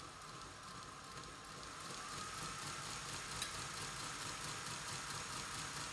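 Electric motor and gear drive of a Lionel BR-50 O-scale model locomotive running in place, a steady whine that climbs slightly in pitch and grows louder as it speeds up, with faint fast ticking from the gearing and one small click about halfway.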